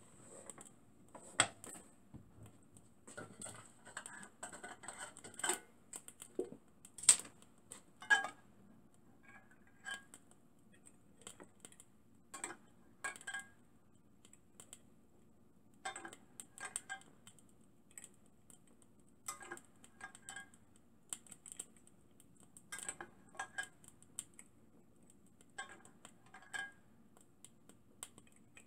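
Scattered light clicks and taps of a small brass alcohol burner and a glass eyedropper being handled while the burner's wick is filled with alcohol, the loudest clicks about seven and eight seconds in.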